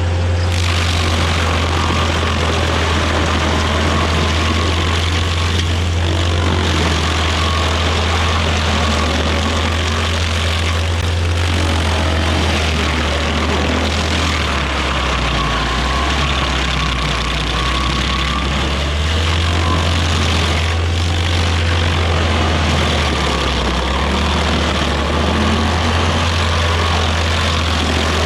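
Small Rayco walk-behind stump grinder running steadily while its cutter wheel swings side to side, chewing into a stump. The low engine note sags briefly a couple of times as the cutter takes a load.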